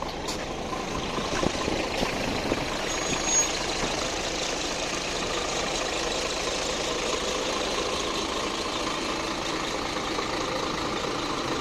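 City bus engine running with steady street-traffic noise.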